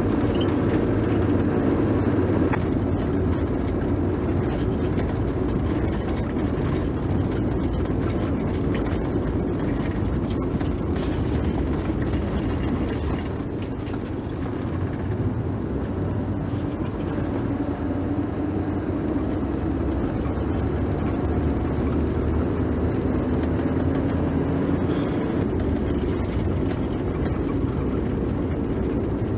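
Steady engine and road noise of a moving car.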